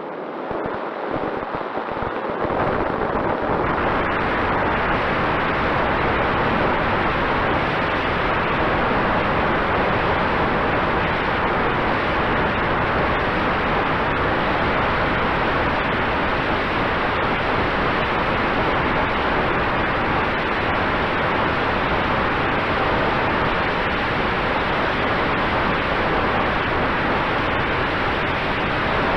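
Strong wind blowing across the microphone: a loud, steady rush of noise that builds over the first two or three seconds and then holds.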